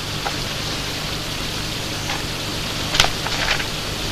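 Steady hiss and low hum of an old film soundtrack, with a sharp click about three seconds in.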